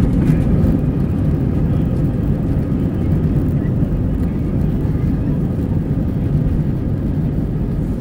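Airliner cabin noise during takeoff: the jet engines and airframe give a loud, steady low roar.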